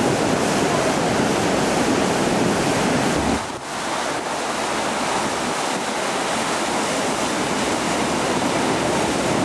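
A river in flood: fast, muddy floodwater rushing and churning under a bridge, a steady loud rushing of water. The sound dips briefly about three and a half seconds in, where the recording cuts, then carries on.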